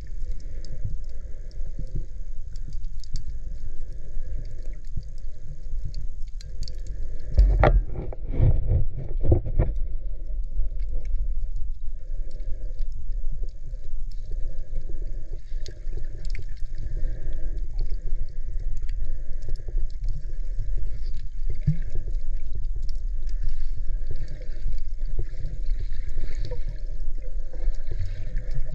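Water rumbling and gurgling around an underwater camera, muffled and low, with a short cluster of louder splashing knocks about eight seconds in.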